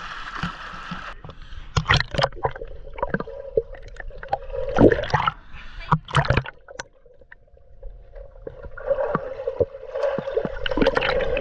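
Water splashing and sloshing, heard muffled through a waterproof phone cover, with sharp knocks and bumps against the case. There is a quieter lull in the middle.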